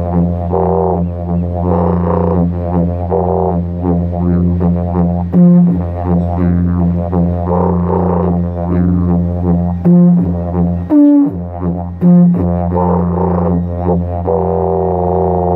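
Didgeridoo playing a steady low drone with rhythmic shifts in its tone. The drone drops out briefly a few times, and a short higher rising toot comes about eleven seconds in.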